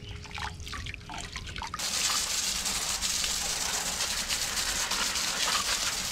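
Garden hose spray nozzle jetting water onto fishing rods and spinning reels to rinse them, a steady hiss of spray that comes on abruptly about two seconds in.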